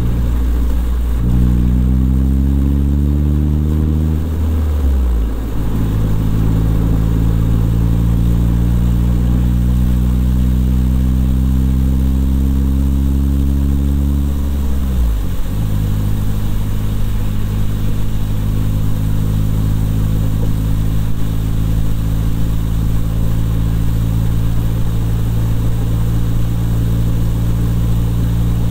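Car engine and road noise heard from inside the cabin as the car accelerates: the engine note rises, drops at a gear change about four seconds in, rises again, drops at a second gear change about fifteen seconds in, then holds steady at cruising speed.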